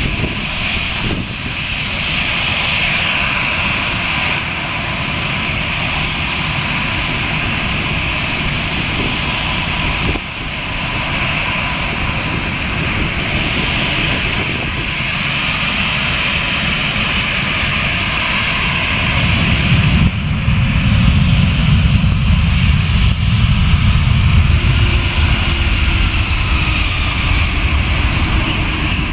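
Dassault Falcon 7X business jet taxiing, its three rear-mounted Pratt & Whitney Canada PW307A turbofans running at low thrust with a steady whine. A deeper rumble grows louder about two-thirds of the way through.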